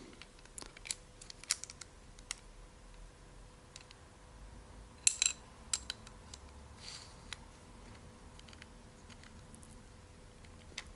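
Small hardware parts being handled and fitted by hand: scattered light clicks and taps, with a sharper cluster of clicks about five seconds in.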